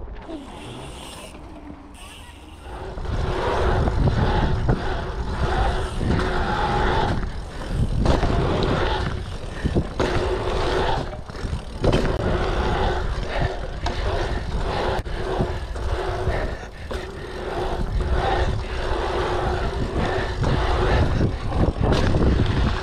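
Specialized P2 dirt-jump bike riding an asphalt pump track: after a quieter couple of seconds, tyre rolling noise with a steady hum and wind buffeting the microphone, broken by scattered knocks and rattles from the bike over the rollers.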